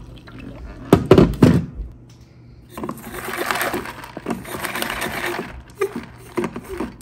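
Water poured from a plastic pitcher over ice and espresso in a clear plastic tumbler. A cluster of loud ice clunks comes about a second in, then a few seconds of rushing, swishing water and ice, and a few light knocks from the tumbler and its lid near the end.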